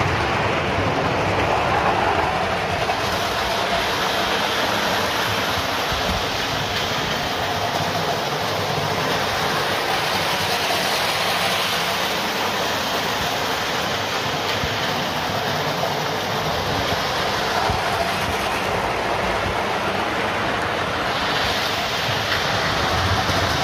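Lionel model train, hauled by a Santa Fe locomotive, rolling along three-rail track close by: a steady running noise of wheels on the rails and the electric motor.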